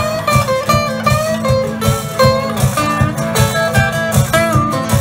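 Live blues band playing an instrumental passage: electric and acoustic guitars over drums with a steady beat, and a lead line of bending notes.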